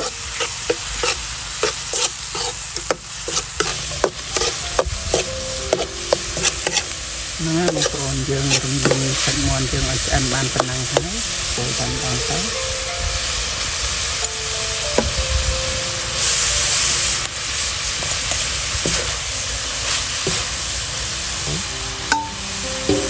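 Food frying and sizzling in a hot pan while it is stirred, with frequent sharp clicks and scrapes of a utensil against the pan.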